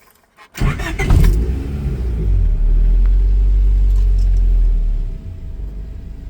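Mini's engine starting about half a second in, catching after a brief crank, running up and then settling to a steady idle around five seconds in. It keeps running now that its broken ECU wiring has been repaired.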